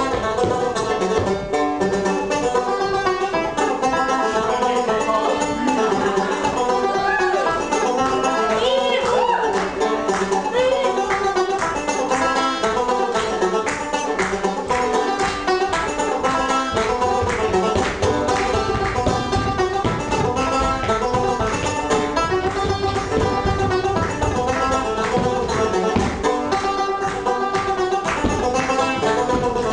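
Lively instrumental folk dance tune with fast-moving plucked notes over a quick, even beat.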